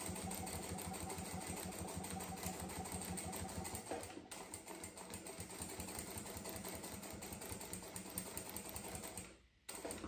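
Jack industrial straight-stitch sewing machine running steadily, stitching through quilted fabric and lining in a fast, even rhythm of needle strokes; it stops shortly before the end.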